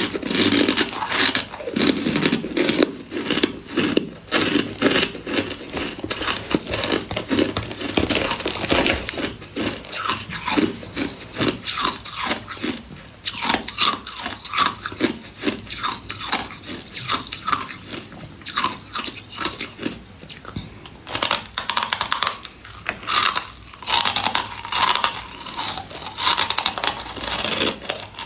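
Close-up ice eating: teeth biting and chewing freezer frost and ice, a continuous run of crisp crunches, several a second.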